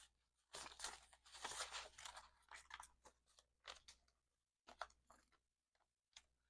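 Paper banknotes and cash envelopes being handled: faint crisp rustling and crinkling, dense for the first few seconds, then a few short separate rustles near the end.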